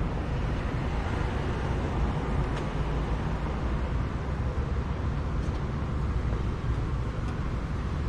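Steady outdoor street ambience: a continuous hum of distant road traffic with a low rumble underneath, unchanging throughout.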